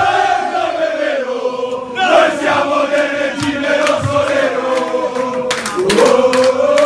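A crowd of men singing a football supporters' chant together, loud and sustained, with the long notes bending up and down as one.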